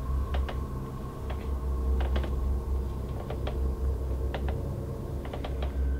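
A low droning hum with a faint steady tone above it, and sharp little clicks scattered irregularly through it, often in pairs, two or three a second.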